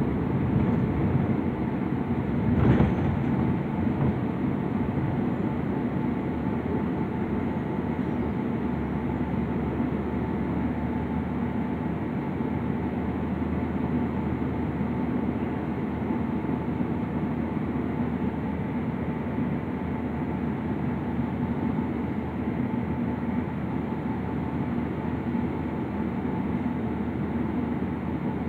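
Steady ride noise inside a moving New Flyer transit bus: a drone of the drivetrain and tyres on the road, with one short knock about three seconds in.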